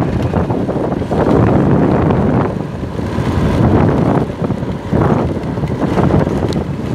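Wind buffeting the microphone of a moving scooter, rising and falling in gusts, with the scooter's running and road noise underneath.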